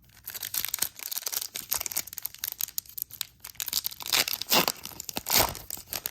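Foil wrapper of a Topps Holiday baseball card pack crinkling and tearing as it is ripped open and handled, a busy run of crackles.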